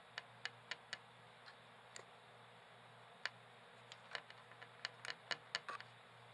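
Faint, sharp small clicks: four in quick succession in the first second, then scattered ones and an irregular cluster a little past the middle.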